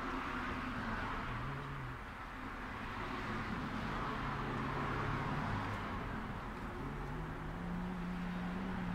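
Background street traffic: a steady wash of road noise with the low hum of vehicle engines passing, their pitch drifting as they come and go.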